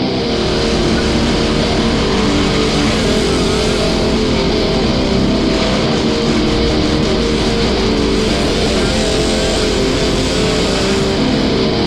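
Background rock music led by electric guitar, steady and loud.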